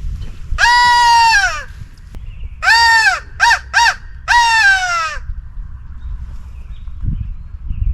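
Loud crow caws: one long caw, a shorter one, two quick short ones, then another long one, each dropping in pitch at the end. Footsteps and rustling run underneath.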